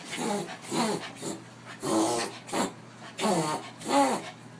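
Dachshund reverse sneezing: a run of about seven short, forceful snorting gasps drawn in through the nose, each rising and falling in pitch, coming roughly every half-second to second.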